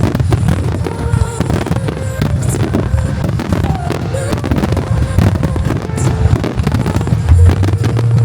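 Aerial fireworks shells bursting in rapid succession, a continuous barrage of deep booms overlapping with crackle.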